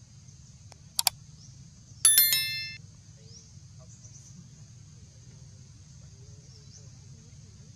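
A quick double click, then about two seconds in a single sharp metallic clink that rings with several tones and fades in under a second, over a steady high hiss.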